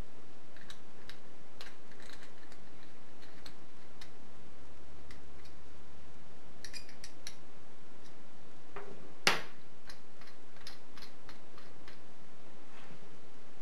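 Light metallic clicks and taps as a steel lathe spindle crank and an Allen key are handled, with one sharper click about nine seconds in.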